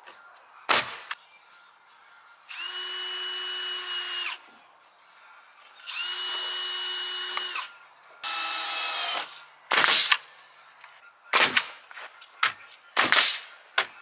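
Cordless drill/driver spinning up three times, each run about two seconds at a steady whine, driving screws into 2x4 framing for a chicken coop. One sharp knock comes about a second in, and several more come in the last few seconds.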